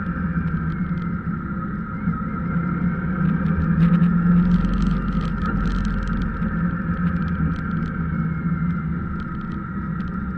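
Vehicle engine running steadily with road noise as it drives slowly along a winding road, a little louder about four seconds in.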